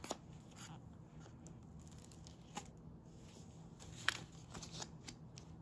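A paper picture book being handled and closed: faint page rustles and a few soft taps, the loudest about four seconds in.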